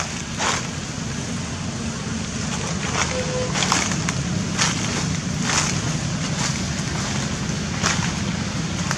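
Footsteps crunching on dry leaf litter, a crisp crackle about once a second, over a steady low rumble.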